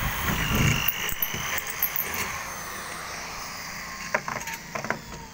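Scattered metallic clicks and clinks from handwork on a stainless steel boat railing being fitted to a fibreglass deck, over a low background rumble.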